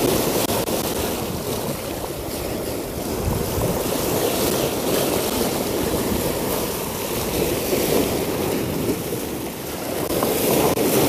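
Seawater surging and splashing over the rocks of a seawall in a steady wash of surf, with wind buffeting the microphone.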